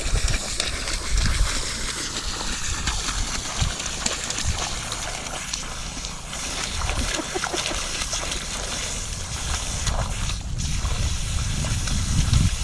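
A dog digging and pawing in a muddy puddle at a holed garden hose, with continuous splashing and sloshing of water and mud.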